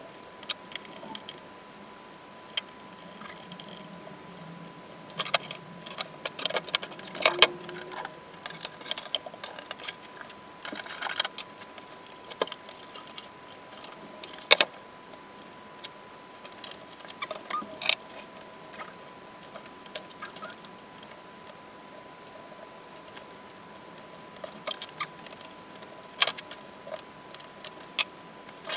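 Irregular metallic clinks, clicks and light rattles of small parts or tools being handled, in clusters with pauses between, over a steady thin tone.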